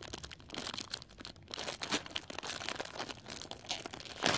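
Thin clear plastic bag crinkling and being torn open by hand in many small, irregular crackles, with one louder crackle near the end.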